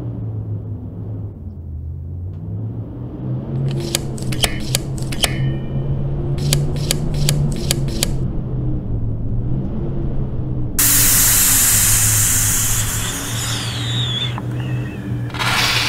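Animated-film soundtrack: a low, slowly shifting drone. Two quick runs of sharp clicks come about four and six and a half seconds in. A loud hiss starts about eleven seconds in, with a falling whistle through it.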